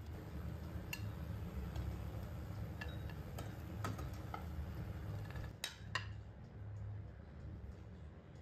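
Metal kitchen tongs clicking and tapping against a non-stick frying pan and a ceramic plate while pan-fried momos are lifted out: scattered light clinks, two sharper ones past the middle, over a low steady hum.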